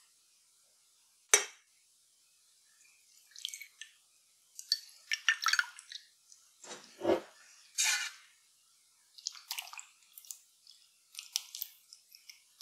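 A metal ladle clinks and scrapes against a glass jar and a stainless steel mesh sieve while scooping wet, syrup-soaked lilac flowers into the sieve over a glass bowl, with soft splats and drips. A single sharp clink about a second in is the loudest sound.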